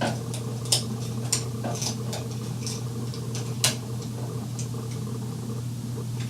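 Irregular small metallic clicks and taps as wires are worked around the terminal screws of a new wall light switch, with a few sharper clicks, over a steady low hum.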